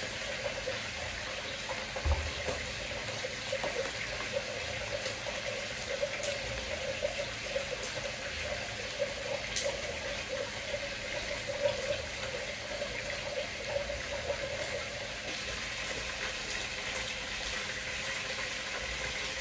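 A creamy drink being stirred by hand in a plastic pitcher: steady swishing of liquid with scattered light clicks.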